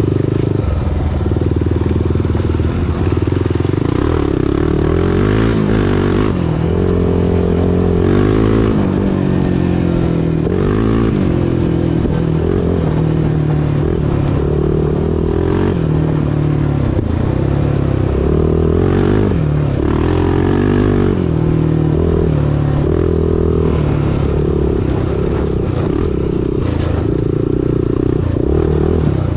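Honda TRX400EX ATV's single-cylinder four-stroke engine running while riding a trail, its pitch rising and falling again and again as the throttle is worked.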